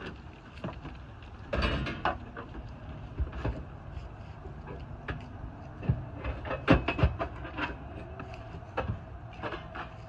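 Irregular knocks, bumps and clatters from inside a cargo van as a man climbs in, kneels on the wooden floor and handles the llama's lead at the metal railing. The loudest knocks come in a cluster about two seconds in and again in a quick run near the middle.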